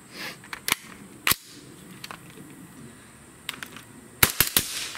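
Suppressed 9mm carbine firing 147-grain full metal jacket rounds: three quick shots in about half a second near the end. Before them come a few sharp metallic clicks as a magazine goes in and the rifle is readied.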